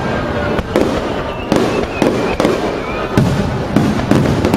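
Aerial firework shells bursting in quick succession, a sharp bang every half second to a second over continuous crackle and rumble.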